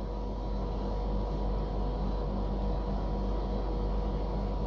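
Steady low hum and hiss with a few faint constant tones, unchanging throughout: background machine or electrical noise.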